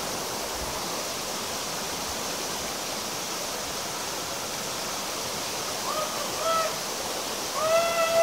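Steady rush of a river running fast over rocks in a stretch of white water. Near the end, a few short pitched calls, then a longer held one.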